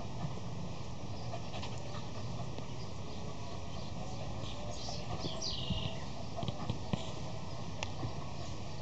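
Fox terrier jumping at a ball hung on a rope and landing on grass, with a few short thuds and knocks in the second half over a steady background hiss.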